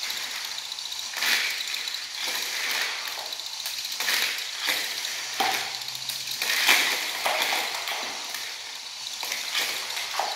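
VEX IQ robot's flywheel spinning fast with a steady high whir, while its plastic gears and seesaw mechanism clatter in about eight short bursts as discs are fed into the flywheel and shot out.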